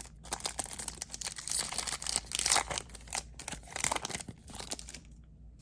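Trading card pack wrapper being torn open and crinkled, irregular crackling that stops about five seconds in.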